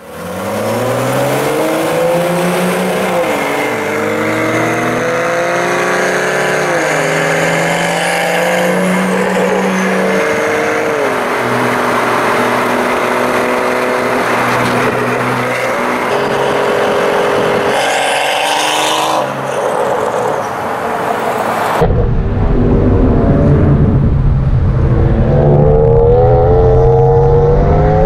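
Performance cars' engines at full throttle in a roll race, rising in pitch and dropping back at each upshift, about three times. About 22 seconds in, the sound cuts to a car pulling hard, heard from inside the cabin, with heavy road and wind rumble under an engine note that keeps climbing.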